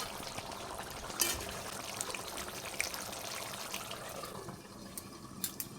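Chicken curry bubbling and sizzling in a pan as the gravy cooks down, with a few light clicks.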